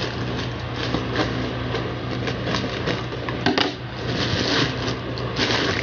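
Scissors snipping open a plastic courier mailer bag, the plastic crinkling and rustling as it is cut and handled.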